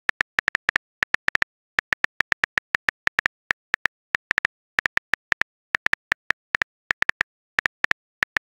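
Phone keyboard typing clicks from a texting-story animation, one short click per letter typed, about five or six a second in bursts with brief gaps between words.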